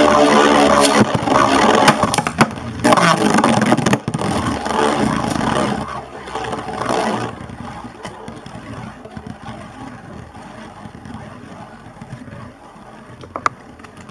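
Two Beyblade spinning tops, Omega Dragonis 85XF and Driger V2, whirring and scraping loudly against each other and the plastic stadium floor after launch. After about seven seconds the sound falls away to a quieter, fading whir as one top keeps spinning and slows down.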